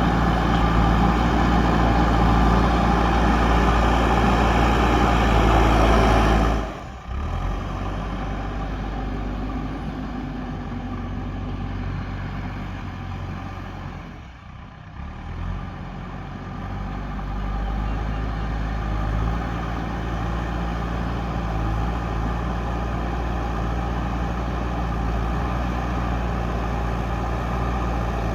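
JCB backhoe loader's diesel engine running, louder in the first seven seconds, then dropping suddenly to a lower level, with a brief dip about halfway before running steadily again.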